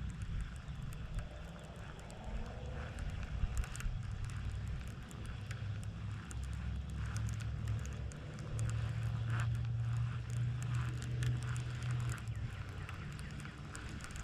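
Wind buffeting the microphone in a steady low rumble, strongest in the second half, with scattered faint ticks and crackles over it.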